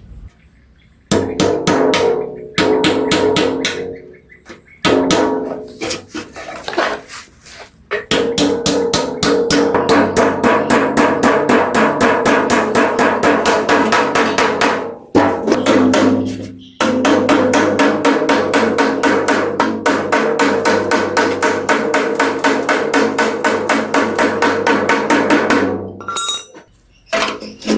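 Rapid, even knocking, about five strikes a second, each with a short pitched ring, in long runs broken by two brief pauses.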